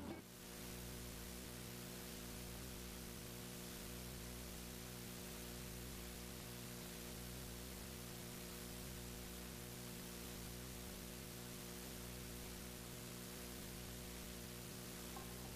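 Steady hiss with a low electrical hum and nothing else: the noise floor of an old film soundtrack between music cues.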